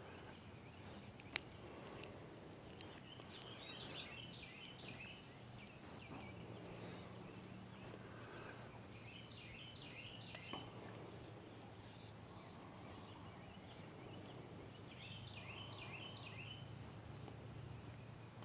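Faint outdoor lakeside ambience with a songbird singing short runs of quick high chirps, three times. A single sharp click about a second and a half in, and a faint low hum that comes and goes.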